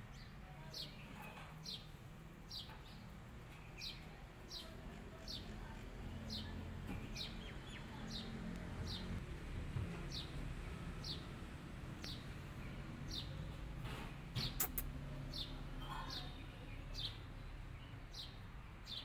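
A bird calling over and over: a short, high note that slides down, repeated about three times every two seconds, over a low steady background rumble. A few sharp clicks come about fourteen seconds in.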